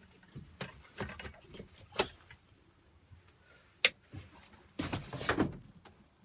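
Handling noises in a truck cab: scattered light knocks and clicks, one sharp click near the middle, and a short rustling stretch about five seconds in.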